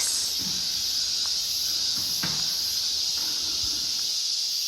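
Insects chirring in a steady, unbroken high-pitched chorus, with a few faint knocks.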